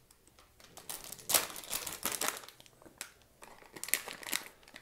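A small plastic bag crinkling in the hands in irregular bursts as spare carburetor parts are packed into it.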